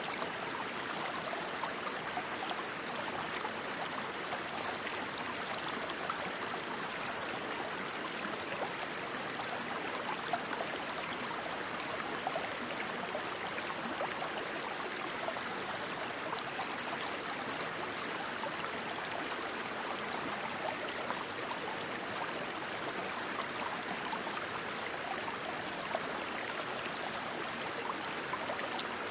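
Rushing stream water running steadily. Over it come short high chirps, one or two a second, with two brief rapid trills about five seconds in and again around twenty seconds.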